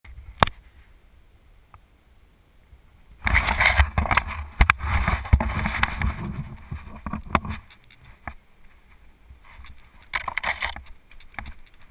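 A mountain bike riding fast down a dirt trail: rough tyre noise and rattling knocks with a low rumble, starting about three seconds in and easing off before eight seconds, then another burst a little after ten seconds. A single sharp knock from handling the camera comes near the start.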